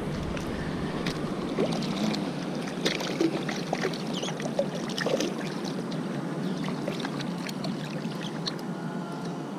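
Water lapping and sloshing against rocks at the water's edge: a steady wash with scattered small splashes and clicks.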